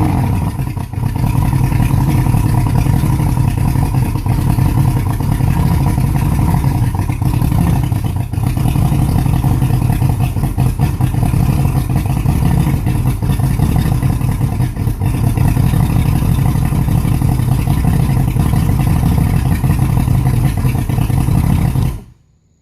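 Yamaha 250 HPDI V6 two-stroke direct-injection outboard idling rough and uneven, then shut off suddenly near the end.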